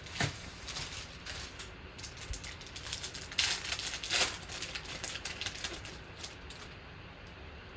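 Trading cards being handled: a run of soft clicks and rustles as cards are flipped through and slid against one another, with two louder swishes about three and a half and four seconds in.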